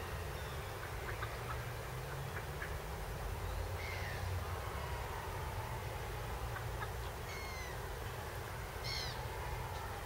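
Outdoor ambience: a steady low rumble with a few short, falling bird calls, about four seconds in and again twice near the end.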